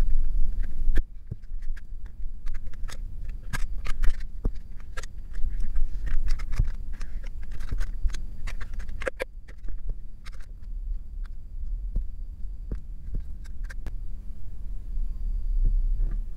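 Stiff clear plastic blister packaging being handled and bent open: scattered sharp clicks and crackles at an irregular pace, with small pieces dropped into a glass bowl, over a steady low hum.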